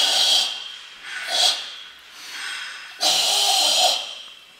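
Karate Sanchin kata breathing: loud, forceful hissing breaths pushed out under full-body tension. A long exhale tails off about half a second in, a short sharp breath comes at about a second and a half, and a second long exhale of about a second runs from about three seconds in.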